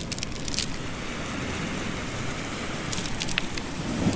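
Wet beach pebbles clicking and knocking together as a hand moves and picks them up, a few clicks just after the start and another cluster about three seconds in, over a steady low rushing background.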